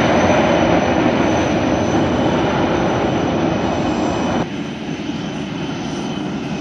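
Turbofan engines of a Boeing 747-400 running close by: a loud, steady roar with a thin high whine. About four and a half seconds in, it drops abruptly to a quieter, more distant jet engine sound.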